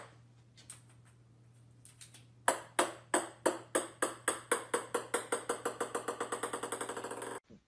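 Small hard plastic ball bouncing on a wooden floor: a sharp knock at the start, then from about two and a half seconds in a run of bounces that come ever faster and softer as the ball settles, cut off near the end.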